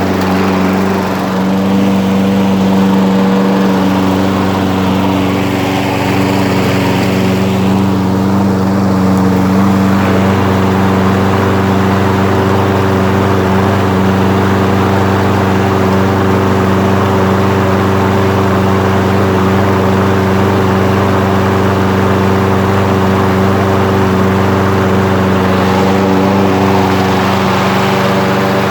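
Toro Recycler walk-behind lawn mower engine running steadily while mowing with the bagger attached.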